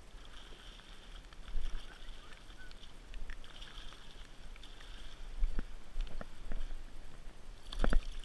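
Handling and water noise as a big hooked bass is fought and brought in, with a low rumble and several sharp knocks, the loudest just before the end.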